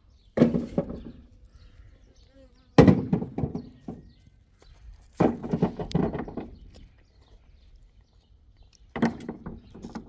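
Livestock bleating: four separate calls, each about a second long.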